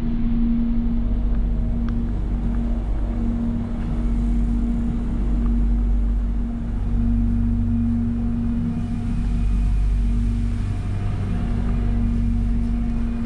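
Steady low hum with a constant droning tone inside an electric airport train car, the Bombardier multiple unit's air-conditioning and onboard equipment running while it stands at the platform.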